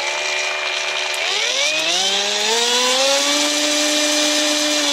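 Brushless motor of a Parkside Performance 20 V cordless jigsaw running with no load, reassembled without its gear mechanism. About a second in its pitch rises as the speed is turned up, then it holds steady: the motor itself works.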